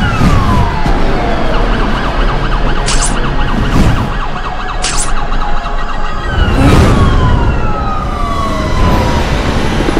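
Film action sound mix of city sirens, their pitch gliding downward in a couple of sweeps, over low rushing whooshes, with brief high hisses about three and five seconds in.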